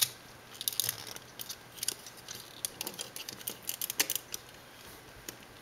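Hard plastic parts of a Transformers Generations Deluxe Class Drift figure clicking and rattling as its hinged leg sections are folded into place. The light clicks come in small clusters, most in the first second and again around three and four seconds in, and thin out near the end.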